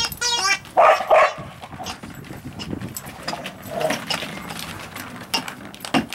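A puppy barking twice, about a second in, at a noise ball, just after the ball's warbling toy sound trails off. Quieter sounds from the dog and a few light clicks follow.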